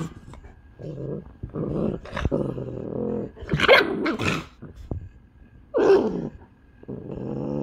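Great Danes growling as they play-wrestle, in a run of low drawn-out growls, with two louder barks about halfway through and near the end.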